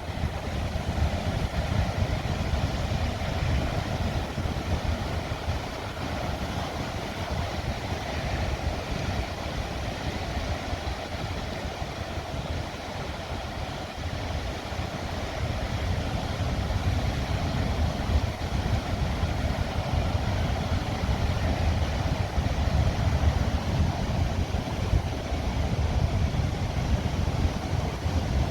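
Heavy storm surf breaking and rushing on a rocky shore, with strong wind buffeting the microphone as a low, gusty rumble. The roar swells and eases slowly over many seconds.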